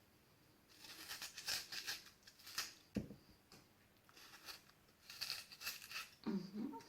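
Potato-peeler knife scraping and gouging out the crisp flesh inside a raw turnip in two runs of quick, scratchy strokes, with a dull knock about three seconds in.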